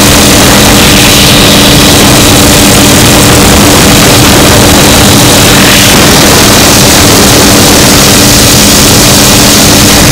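Helicopter cabin noise: a loud, steady drone of turbine and rotor with a rush of air, a constant low hum running under it.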